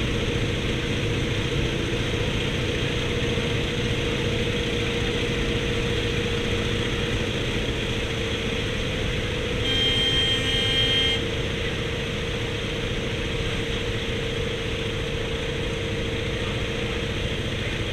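Antonov An-2's nine-cylinder radial engine running steadily with a constant drone. About ten seconds in, a high beep sounds for about a second and a half over it.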